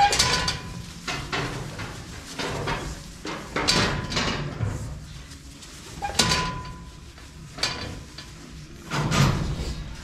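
Young pigs playing and rooting in fresh sawdust in their pen, with a short, sharp scuffle or knock every second or two.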